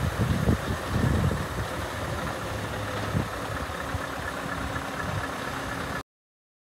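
Scania R580 truck's V8 diesel engine idling steadily, with a heavier rumble in the first second or so. The sound cuts off suddenly about six seconds in.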